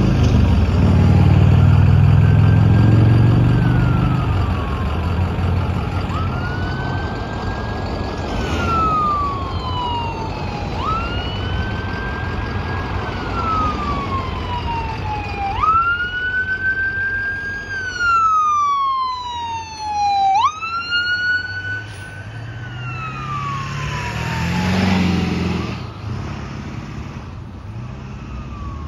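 A pickup truck's engine is loud as it passes at the start. Then an ambulance siren sounds in wail mode, sweeping quickly up and falling slowly about every five seconds, with a second siren tone overlapping briefly past the middle. Another vehicle passes about three-quarters of the way through.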